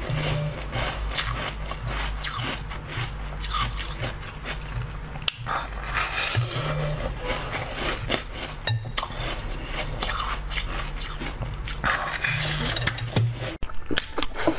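Close-up mouth sounds of eating: biting and chewing into a crisp green lettuce-like food, with many small crackles. A brief sharp break near the end.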